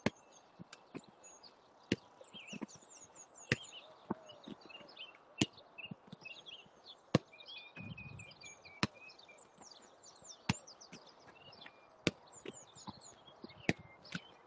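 Football being kicked and passed: a sharp knock about every one and a half to two seconds, with lighter touches in between. Birds chirp throughout.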